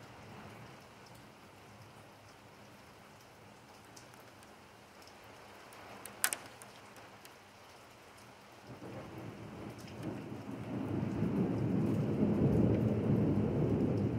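Steady rain falling on pavement and roofs, with one sharp click about six seconds in. Thunder then rolls in: a low rumble that builds over the last five seconds and becomes the loudest sound.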